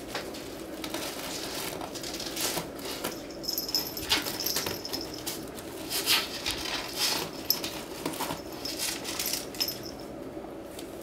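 Small jingle bell on a kitten's collar tinkling in two spells, a few seconds in and again later, amid the crackly rustling of a plastic bag stuffed in a cardboard tube as the kitten and ferrets play with it.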